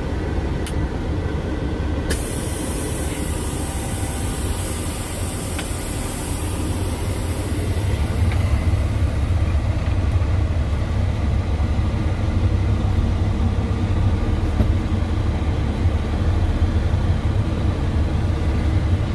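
Logging truck driving: a steady low diesel engine drone with road noise, growing a little louder about eight seconds in. A high hiss comes in about two seconds in and fades away.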